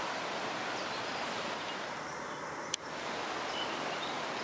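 Steady rushing of the fast-flowing Soča river, heard through the forest as an even wash of water noise. A single sharp click cuts through it about two-thirds of the way in.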